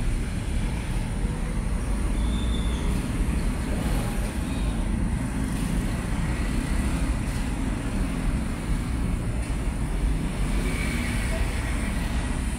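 Steady low rumble of background noise, with a faint high-pitched whine throughout.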